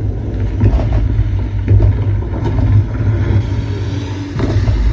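Deep, continuous bass rumble with a few scattered hits, from a sci-fi film's sound effects, played back through a Logitech Z-2300 2.1 THX speaker system with its subwoofer.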